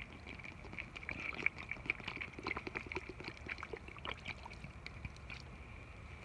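Water poured from a plastic bottle onto a cloth towel, splattering and dribbling in irregular small splashes for about five seconds before it stops.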